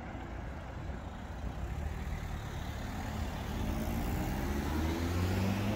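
Car engine running close by, getting louder and rising slightly in pitch over the last couple of seconds as the car moves off or passes.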